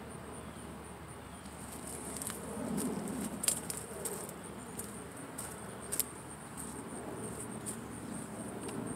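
Insects chirring in a steady, high, pulsing trill. A patch of low rustling noise comes about three seconds in, and two sharp clicks follow, the louder about three and a half seconds in and another about six seconds in.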